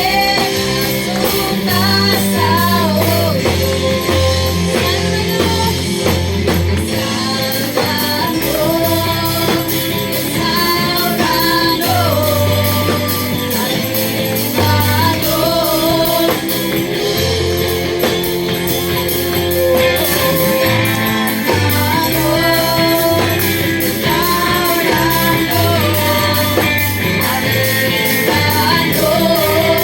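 A worship song with singing over bass, guitar and drums, at a steady beat.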